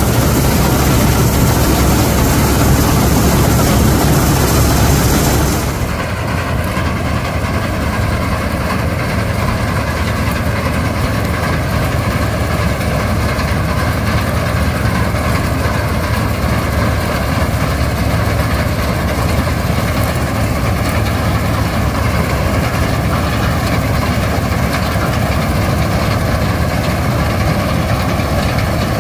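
Laverda M100 AL combine harvester running while harvesting wheat: a loud, steady mix of engine drone and rushing machinery, heard close up on the machine. About six seconds in the sound drops suddenly to a quieter, steadier engine drone, the combine now heard from the field.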